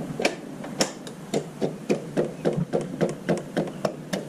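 New electric fuel pump on a 2005 Honda Metropolitan scooter ticking steadily, about four clicks a second, as it runs on test and pushes fuel through its outlet: the pump is working and delivering fuel.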